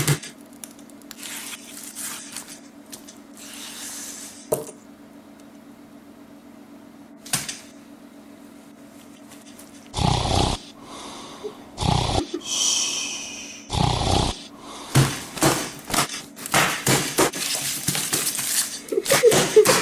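Space heater's fan humming steadily. About halfway through, three short loud crashes and a brief high shriek break in, followed by a quick run of short sounds near the end.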